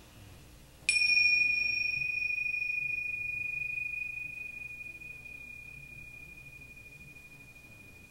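A small bell struck once about a second in, ringing one clear high tone that fades away slowly over several seconds.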